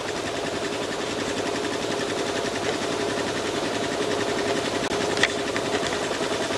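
Motorcycle engine running steadily with a rapid, even beat, and one sharp click about five seconds in.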